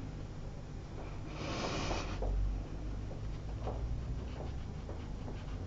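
Faint strokes and dabs of a watercolour brush on paper, over a steady low hum. About a second and a half in there is a short hiss.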